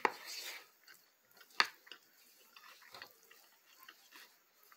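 Eating sounds: a metal spoon clicking and scraping against a plastic food container, a few sharp clicks spread a second or so apart with a brief scrape near the start, and soft chewing between.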